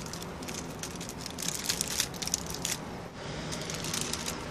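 Clear plastic sheeting crinkling and crackling as it is handled and pulled into place, in two spells of dense crackles, the louder one from a little past a second in.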